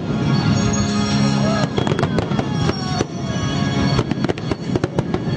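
Fireworks going off: many sharp bangs and crackles in quick succession, over music playing.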